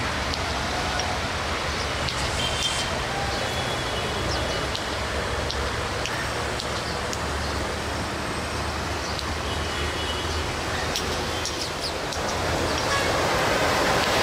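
Diesel-electric locomotive engine running with a low, steady hum as it creeps forward at walking pace, under a haze of background noise and scattered voices. The sound grows louder near the end as the locomotive draws closer.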